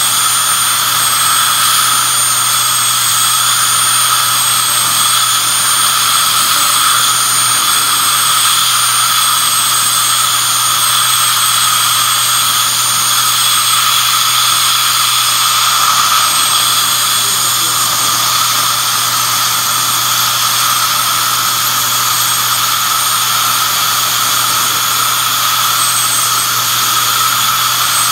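High-speed dental drill (air-turbine handpiece) running continuously as a tooth is shaped for a crown: a steady high whine that wavers slightly in pitch, with the hiss of the suction.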